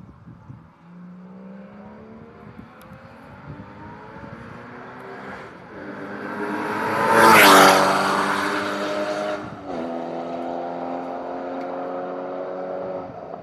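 A car on a race circuit accelerates hard down the straight and passes close by, its engine note rising as it approaches and dropping in pitch as it goes past. A couple of seconds later the note steps down once, an upshift, and it pulls away.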